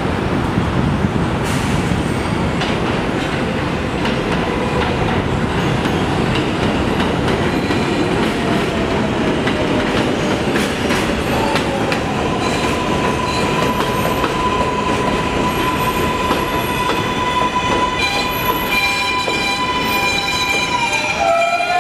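R142A subway train moving along an elevated platform, its wheels rumbling and clattering on the rails with a loud, steady din. A high whine runs over it, slowly falling in pitch over the first half. From about halfway it becomes a steady higher whine, gains shriller overtones near the end, and drops in pitch in a few steps right at the end.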